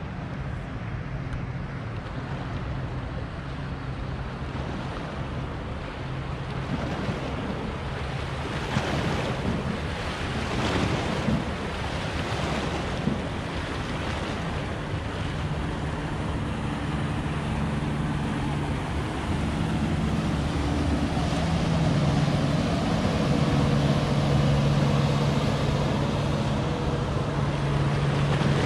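Wake waves splashing against a rock embankment, most splashy in the first half, with wind buffeting the microphone. A small motorboat's engine hums underneath, growing louder in the second half.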